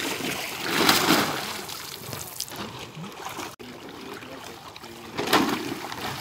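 Water splashing and sloshing as a caught fish thrashes and men wade and handle it in shallow pond water, with two louder splashes, about a second in and again near the end.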